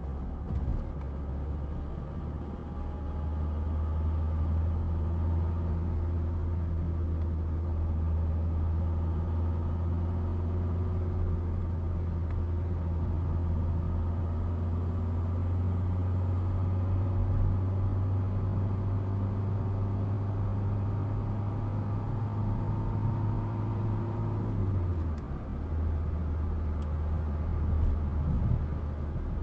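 Car interior noise while driving: a steady low engine and road drone heard from inside the cabin. Near the end the drone drops lower as the engine speed falls.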